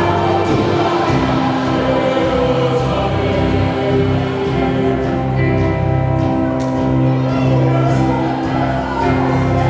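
Church orchestra and choir performing a gospel hymn, the choir singing over sustained orchestral chords and a steady bass.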